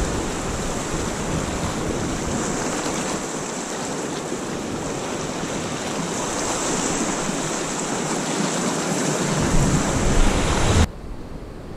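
Sea surf washing over a rocky ledge: a steady rushing hiss of breaking waves, with wind rumbling on the microphone toward the end before the sound drops suddenly to a quieter hiss.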